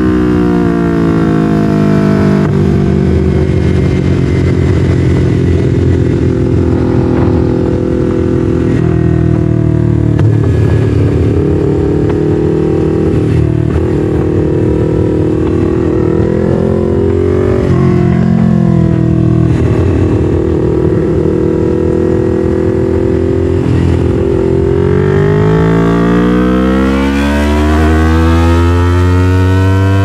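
Yamaha MT-03's 321 cc parallel-twin engine through an SC-Project full exhaust, under way. The revs fall at first, hold fairly steady with a couple of brief dips, then climb steadily near the end as the bike accelerates.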